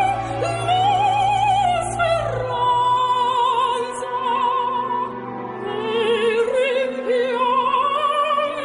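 Operatic singing: long held notes with a wide, even vibrato, sliding between pitches.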